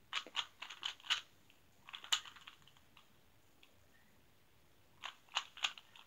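Plastic Rubik's Cube being turned by hand: three quick runs of clicking layer turns, with pauses between.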